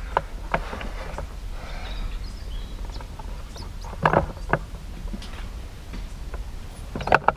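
A few light knocks and clicks over a low steady rumble, with faint bird chirps in the background.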